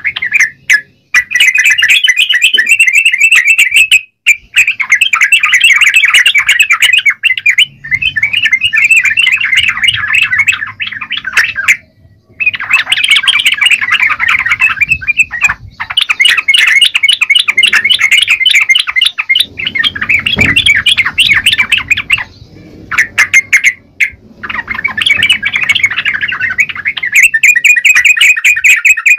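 Yellow-vented bulbul singing actively in long, loud, rapid chattering phrases, broken by brief pauses.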